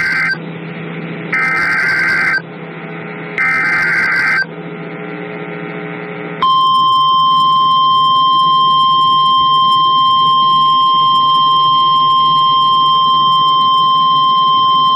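Two short screeching bursts of EAS SAME header data, about a second long and a second apart, then from about six seconds in the single steady tone of the NOAA Weather Radio 1050 Hz warning alarm. Together they are the digital start code and attention signal that open an emergency weather alert.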